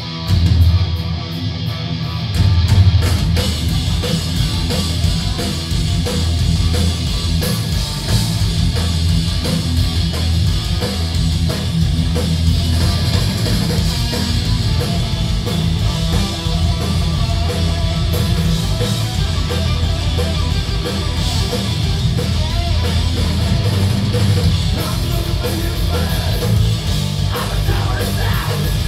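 Rock band playing live at a steady loud level: distorted electric guitars over bass and drums. The full band comes in just after the start, taking over from guitar alone.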